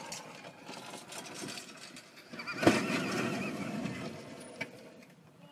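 Golf cart rolling onto its side: a sudden crash about two and a half seconds in, with a person's high-pitched cry around it.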